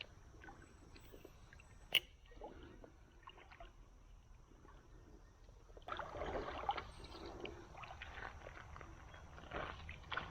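Creek water splashing and sloshing, with one sharp click about two seconds in and a louder stretch of splashing in the second half.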